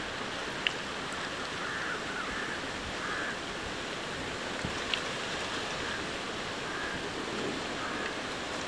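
Potato-and-semolina fingers deep-frying in a large pot of hot oil: steady sizzling, with a couple of small sharp clicks.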